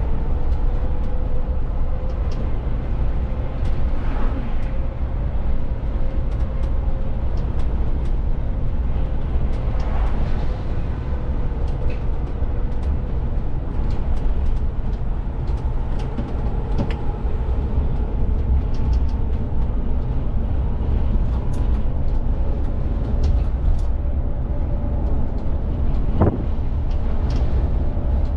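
VDL city bus driving, heard from the driver's cab: a steady low rumble of drivetrain and road noise with a faint steady whine, small rattles throughout and a single knock near the end.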